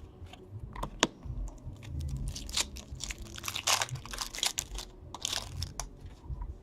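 Foil trading-card pack wrapper being torn open and crinkled, with cards handled, a run of sharp crackles and clicks with one sharp click about a second in.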